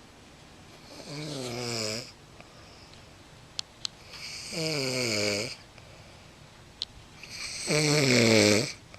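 Loud snoring: three long snores about three seconds apart, each sliding down in pitch. A few short clicks fall between the snores.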